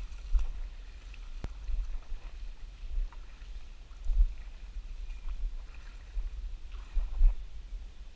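Uneven low rumbles and knocks from a body-worn action camera jostled in its case as the wearer moves, with a few faint clicks.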